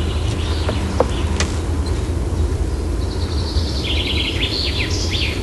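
Birds chirping in a quick run of short high notes over a steady low background rumble.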